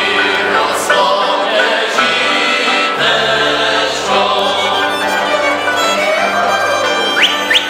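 Moravian folk cimbalom band playing a dance tune, with violins, cimbalom and double bass, and voices singing along.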